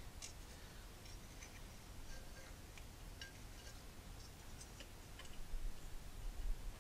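Faint, scattered light metallic clicks and ticks of feeler gauge blades and a steel straight edge being handled against a cylinder sleeve flange, checking the wet sleeve's standout above the block. A low steady hum lies underneath.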